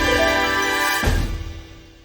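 Intro theme music: held notes over a low beat, with a heavy hit about a second in, fading out near the end.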